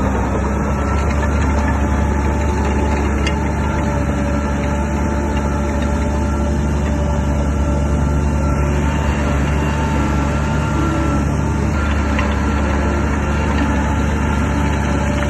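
Shantui DH17 bulldozer's diesel engine running steadily, a low drone with a steady whine above it.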